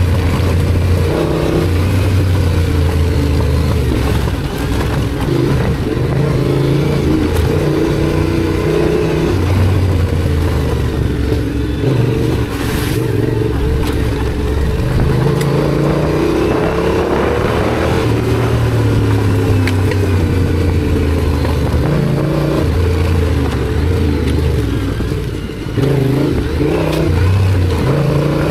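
Yamaha Ténéré 700's parallel-twin engine running under way, its revs rising and falling again and again with throttle and gear changes.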